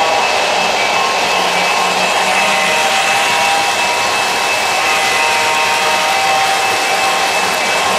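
O-gauge model trains running on three-rail track: a steady rush of wheels rolling on rail, with thin, steady whining tones over it.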